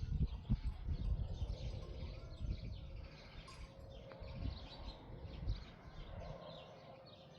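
Small birds chirping over and over, many quick high chirps, over a low rumble that dies away in the second half.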